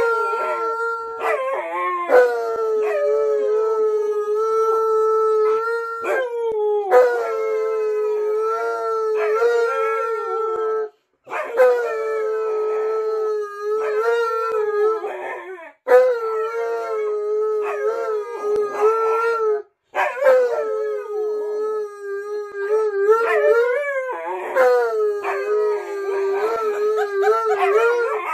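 An Alaskan malamute and a Siberian husky howling together in long held howls near one steady pitch, with small slides up and down. The howls break off briefly three times, and near the end the two voices overlap at different pitches.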